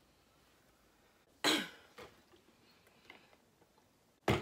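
A woman coughs once, clearing her throat, about a second and a half in. A few faint small sounds follow, and near the end there is a short, sharp sound as she drinks from a large plastic water bottle.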